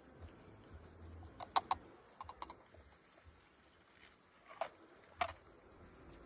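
Sharp knocks, a couple of pairs and then two single raps, of a rapid feeder being banged to knock the bees out of it.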